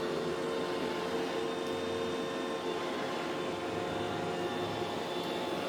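iRobot Roomba E5 robot vacuum running: a steady motor hum with several steady tones over it.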